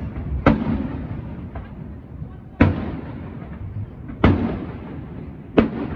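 Aerial firework shells bursting in the distance: four sharp bangs at uneven intervals, each followed by a rolling echo.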